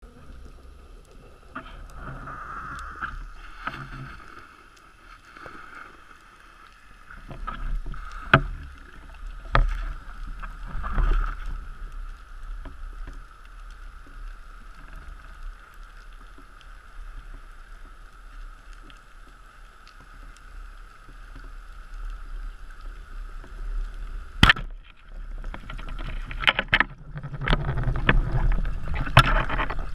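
Underwater sound heard through a camera housing during a spearfishing dive: a steady hum with low rumble and scattered sharp clicks and knocks. A very sharp crack comes about four-fifths of the way through, with more knocking and rumble after it.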